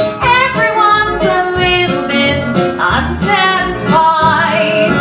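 A cast singing a stage musical's finale song with band accompaniment, recorded live in the theatre.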